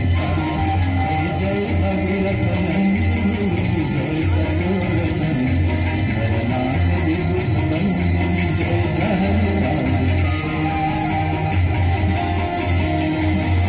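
Devotional aarti music with bells jingling continuously over a steady low pulse.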